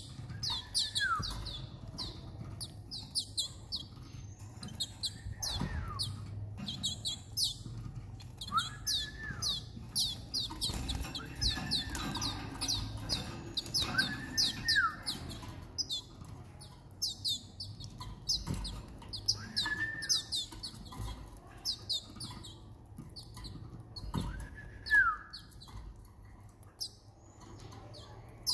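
Young Timbrado canaries chirping in a rapid, continuous stream of short high calls, with a lower arching call every few seconds. A few soft low bumps occur as well.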